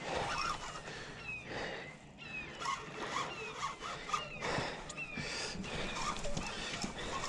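Fishing reel and line working against a heavy fish on a bent rod, with a rough, zipper-like run of clicks. Birds chirp repeatedly in the background with short, falling calls.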